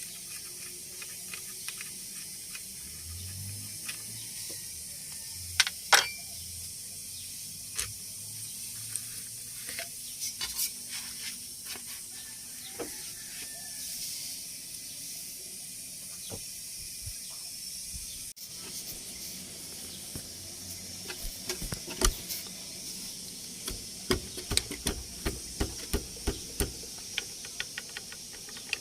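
Hand tools working on an engine's drive-belt adjuster: scattered metal clicks and taps over a steady hiss. They turn into a run of quick ratchet-like clicks, about two a second, for the last several seconds.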